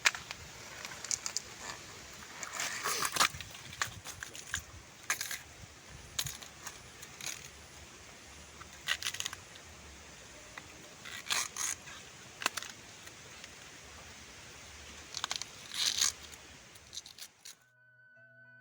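Close-up crunchy chewing and wet mouth sounds of eating rujak made from banana tree trunk, in irregular bouts of crackly crunches. Music with mallet-like notes comes in near the end.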